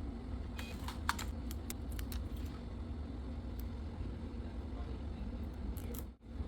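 Buttons of a handheld label maker clicking as dates are keyed in, a scatter of short, sharp clicks mostly in the first couple of seconds, over a steady low hum.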